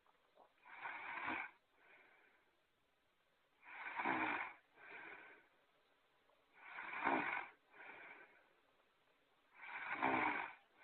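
Cartoon-style snoring sound effect: a loud snore about every three seconds, four times, each followed by a shorter, softer breath.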